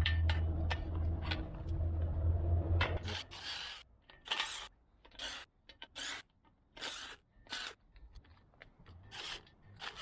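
Hand-work on a metal gate lock: scattered clicks and short scraping rasps, about seven of them after the first three seconds, with a low rumble under the first three seconds.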